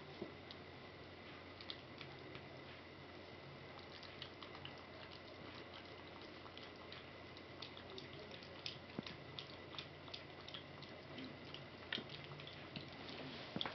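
Faint wet smacking and clicking of a 3.5-week-old puppy lapping mush from a bowl, with scattered ticks that grow more frequent after the first few seconds, over a steady low hum.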